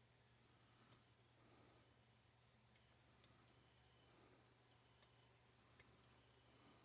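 Faint, irregular light clicks of a dimple flag pick working the pins of a Mul-T-Lock Interactive dimple lock under tension, over a faint steady low hum.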